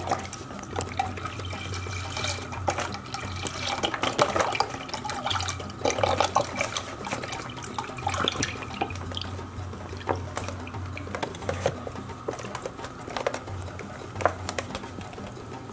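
Whole milk pouring from a carton into a stainless steel saucepan, splashing unevenly into the liquid as the pot fills.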